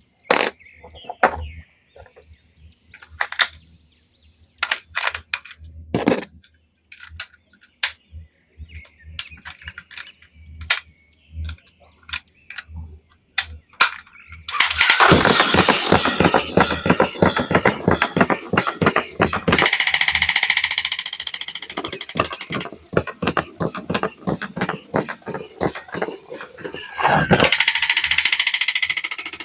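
Handling of a plastic action figure and its packaging: scattered clicks and knocks, then from about halfway through, long spells of dense, rapid rattling and scraping noise.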